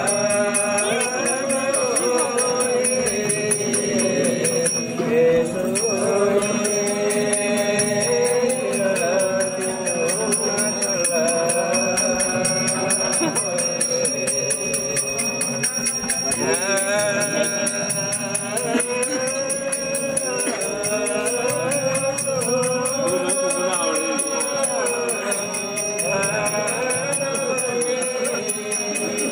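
A group of voices chanting a traditional Gurung song together in a slow, wavering melody, with a rhythmic jingling behind it.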